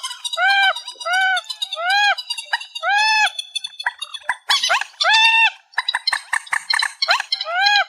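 Trích ré bird calling: a loud, steady series of short nasal notes, each rising and falling in pitch, about two a second. In the second half these give way to a faster chatter of short, sharp notes, several a second.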